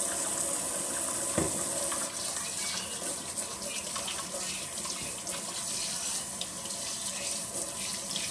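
Kitchen faucet running into the sink while hands are washed under it, with a single knock about a second and a half in. About two seconds in the steady rush of water drops a little and turns into uneven splashing as the hands rub under the stream.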